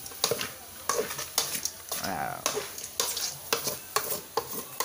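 Metal spatula scraping and clinking against an aluminium pot as chicken pieces are stir-fried in oil, with a steady sizzle under irregular strokes about two to three a second.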